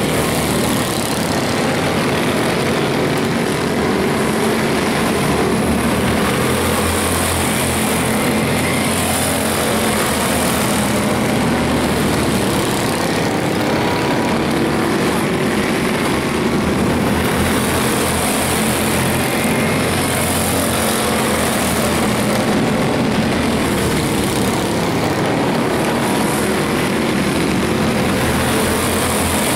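Several quarter midget race cars' small single-cylinder engines running at racing speed, a steady buzzing drone that swells and fades a little as the cars pass on the dirt oval.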